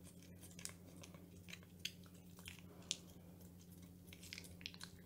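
A cat chewing a treat: a faint, irregular run of small crunching clicks, with two sharper bites about two and three seconds in.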